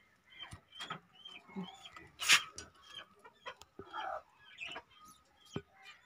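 Budgerigars giving scattered short chirps and squawks, with one louder squawk about two seconds in, and a few light clicks among them.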